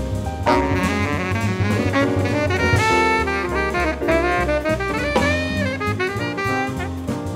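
Tenor saxophone playing a busy line of quick notes over bass and drums in straight-ahead swing jazz.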